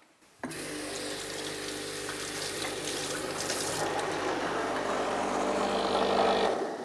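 Breville Barista Express's steam wand hissing steadily, with the machine's pump humming underneath; it is switched on about half a second in and cut off near the end.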